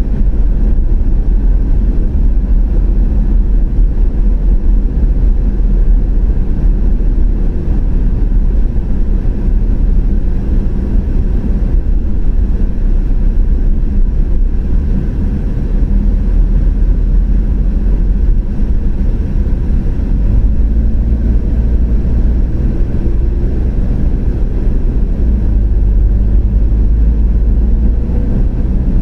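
A car driving along a road: steady low rumble of engine and tyre noise, with an engine tone slowly rising over the last several seconds.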